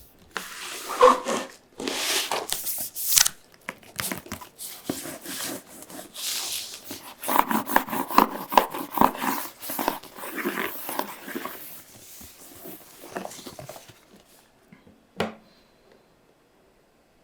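Cardboard packaging being torn open and handled, with irregular tearing and rustling, then a single sharp knock near the end.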